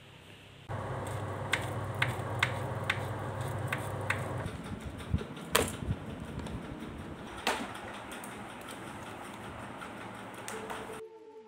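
Garment steamer running: a steady hum about a second in, with sharp clicks and knocks as it is handled. Near the middle it gives way to a steady hiss with a few more knocks.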